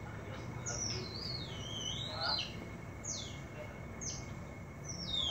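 Otter chirping: high, squeaky calls that slide down in pitch, about one a second, with a longer, wavering call about a second in.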